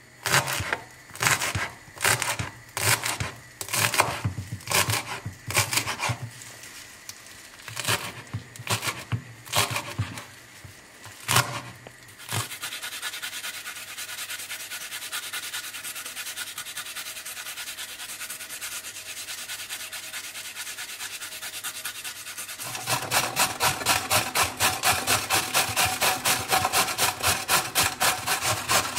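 Kitchen knife chopping fresh herbs on a wooden cutting board in irregular strokes. About twelve seconds in this gives way to a steady fine rasping as garlic is grated on a small flat metal grater. For the last several seconds a carrot is grated on a box grater standing on the wooden board, in fast, even strokes.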